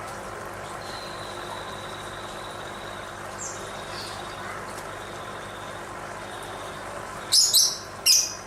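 Lovebird giving short, shrill calls: three loud ones close together near the end, with a few faint chirps and a thin, steady high tone earlier, over steady background noise.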